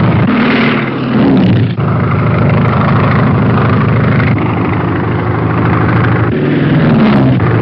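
Biplane engine and propeller drone, loud and steady, with the pitch climbing briefly about half a second in and again near the end.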